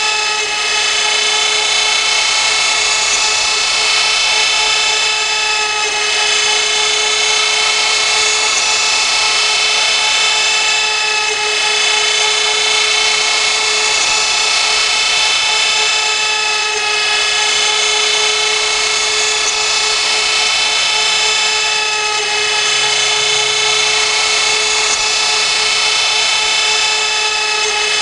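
CNC router spindle running with a steady high whine while cutting, with slight dips in level about every five to six seconds.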